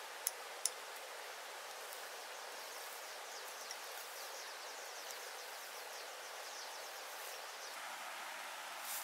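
Steady outdoor hiss with two sharp clicks in quick succession just after the start, and a faint rapid high ticking through the middle.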